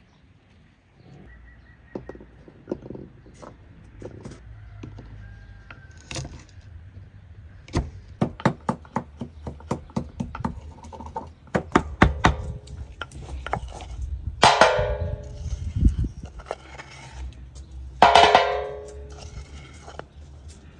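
Garlic being pounded in a wooden mortar: a run of quick, sharp knocks after a quieter start. Then twice comes a louder knock with a ringing metallic tone as the mortar is tapped against an engraved metal tray to empty it.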